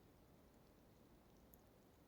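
Near silence: a faint steady hiss with a couple of faint high ticks about one and a half seconds in.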